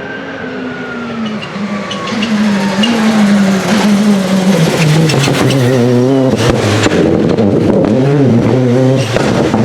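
Rally car engine running hard with its revs falling steadily as it slows, then rising and falling quickly again and again from about five seconds in, with a few sharp cracks.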